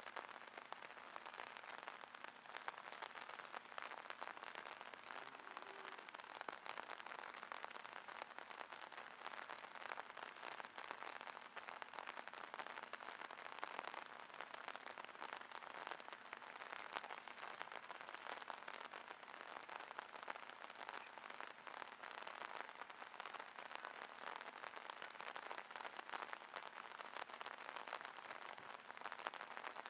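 Steady rain falling, a dense even crackle of countless small drops hitting the water and ground.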